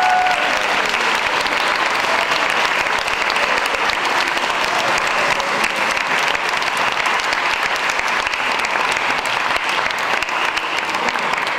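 Audience and cast applauding: many hands clapping together in a steady, sustained round of applause.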